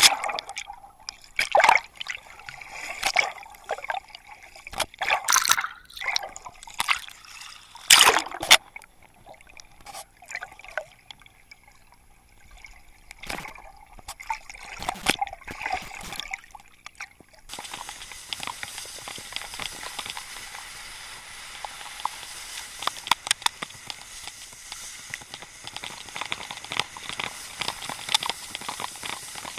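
Water splashing and sloshing in loud irregular bursts around the submerged wakeboarder, with bubbling between them. A little past halfway this gives way abruptly to a steady rushing hiss as the wakeboard is towed across the lake surface.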